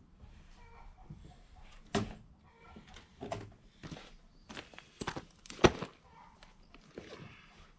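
Footsteps and knocks of a person moving around inside a shipping container and stepping out onto gravel, with a loud thunk about five and a half seconds in as a tool bag is set down on the ground.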